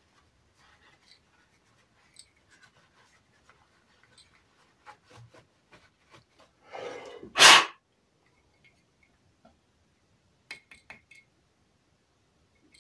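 Small handling clicks and light metallic clinking from a loose small metal part, likely a grub screw or nut, rattling inside the radio's front assembly as it is moved. A quick cluster of clinks comes about ten and a half seconds in. A short, loud burst of rushing air noise about seven seconds in is the loudest sound.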